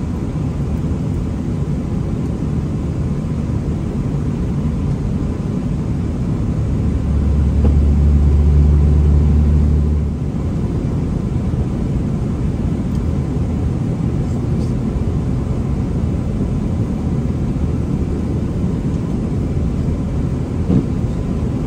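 Pickup truck on the move: steady engine and road rumble, swelling louder for about three seconds around seven seconds in.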